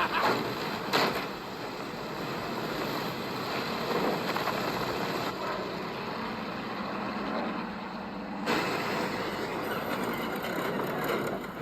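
Film soundtrack of an airborne airplane scene: a steady rush of wind and aircraft engine noise, with a couple of knocks about a second in and again about four seconds in.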